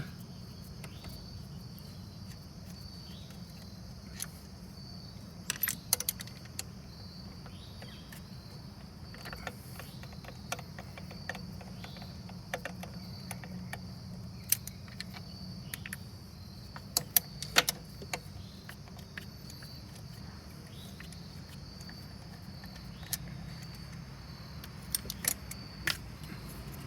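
Scattered metallic clinks and taps of bolts and a socket tool being handled while six bolts come off a car's gearshift control assembly, loudest in a cluster about two-thirds of the way through. Crickets chirp steadily in the background.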